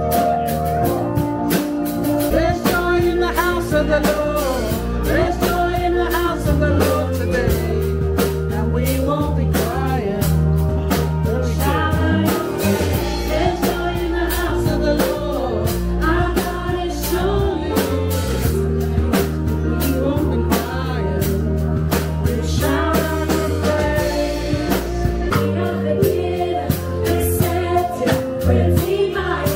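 Background song: a singing voice over bass and a steady drum beat.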